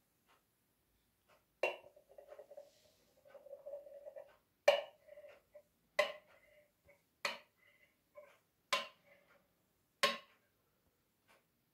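Stainless steel milk pitcher clinking against a ceramic mug six times while milk is poured for latte art, each clink ringing briefly; the first clink rings on for a few seconds.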